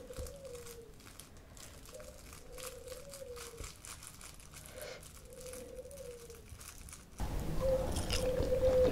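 Thin plastic bag crinkling softly as cucumber slices are worked out of it by hand. About seven seconds in, louder close-up eating sounds begin.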